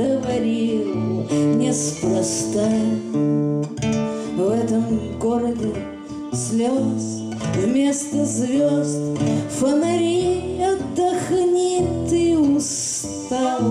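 Violin playing a sliding melody over strummed acoustic guitar chords.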